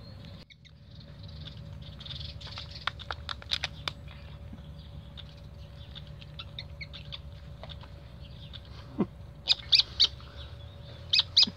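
Spider monkey eating pasta bake by hand from a plastic pot: small clicks and smacks of eating and handling the pot, then a few short, sharp, high squeaks in two quick clusters near the end.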